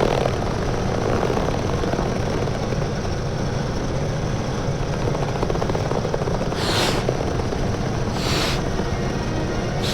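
A steady mechanical rumble, with two short whooshes about seven and eight and a half seconds in.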